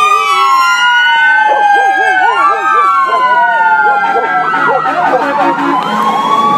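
Several emergency-vehicle sirens sounding at once, loud, overlapping slow rising-and-falling wails with fast yelping cycles.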